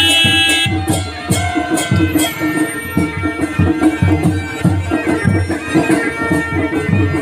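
Live Kumaoni wedding band music: masakbeen (bagpipes) playing a droning melody over a steady drum beat.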